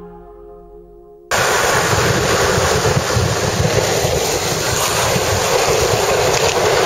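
Music fading out, cut off about a second in by a loud, steady rush of wind on the microphone and the rumble of longboard wheels rolling fast on asphalt, recorded by a camera riding downhill.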